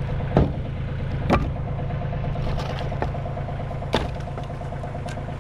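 Engine idling steadily, with a few sharp knocks scattered through it.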